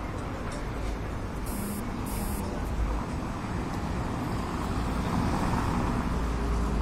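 Street traffic noise with a motor vehicle's engine running, the low rumble growing louder over the last couple of seconds.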